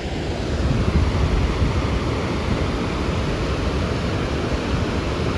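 Steady rushing of water released through a dam's open floodgates, an even noise heaviest in the low end.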